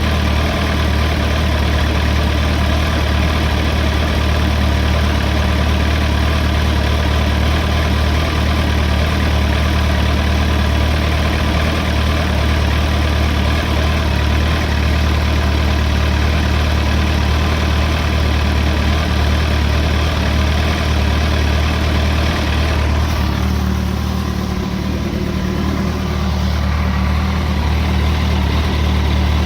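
Kawasaki ZX-14 motorcycle's inline-four engine idling cold, running steadily with a clattering rattle over the hum, the clatter that the owner notices on the new bike from cold. About 23 seconds in the higher rattle quietens and the note shifts slightly lower and smoother.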